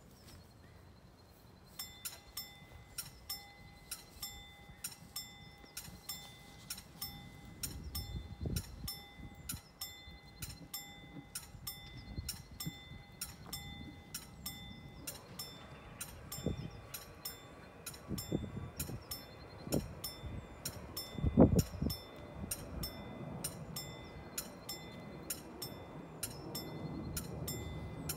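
Level-crossing warning bell starting about two seconds in and striking at about two strikes a second, the signal that the crossing is closing for an approaching train while the barriers lower. Its ringing tone changes about halfway through, and a few low thumps stand out, the loudest about 21 seconds in.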